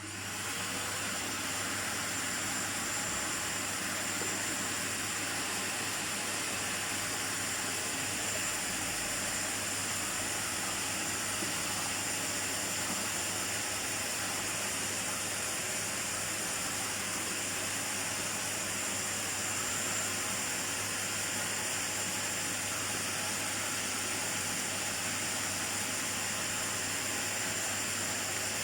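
Miele vacuum cleaner running steadily after switch-on: an even rush of motor and airflow with a faint high whine, at a constant level.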